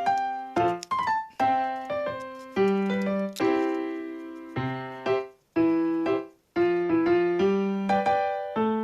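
Background music: a piano or electric piano playing a light, bouncy tune of sharply struck chords and notes that ring and die away between strikes.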